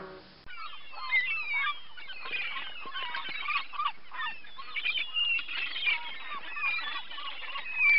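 A flock of birds calling over one another: many short, chattering calls in quick succession, starting about half a second in.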